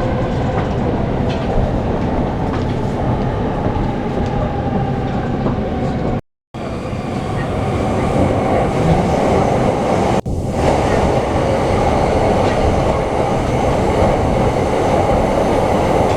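Steady running noise of a JR commuter train heard from inside the car: a continuous rumble of wheels on rail. The sound cuts out completely for about half a second around six seconds in and dips briefly again around ten seconds in.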